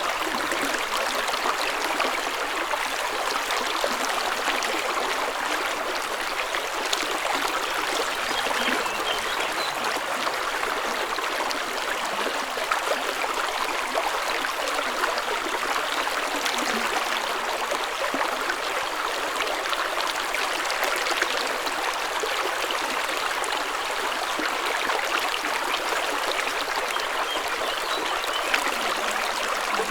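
Spring water running in a small stream, trickling and gurgling steadily.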